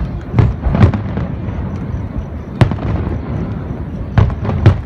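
Aerial fireworks shells bursting: about five sharp booms, two in the first second, one in the middle and two close together near the end, over a continuous low rumble of more distant bursts.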